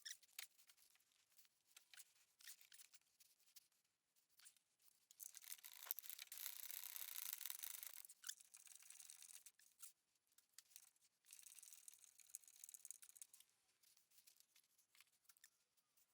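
Faint handling noise of nuts being refitted on the bumper mounts: scattered light clicks, with two longer stretches of scraping and rubbing, about five seconds in and again around eleven seconds.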